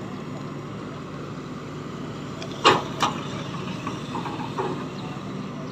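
Matador Shantui excavator running steadily as its bucket digs through wet mud, with two sharp knocks close together about two and a half seconds in and a few lighter knocks after.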